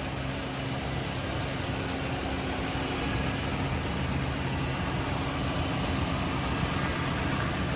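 A vehicle engine idling steadily, an even low hum with no change in pitch.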